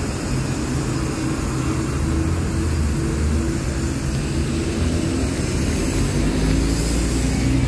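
Steady rumble and hiss of street traffic on a wet road, with a 71-923M Bogatyr-M tram slowly approaching along the rails.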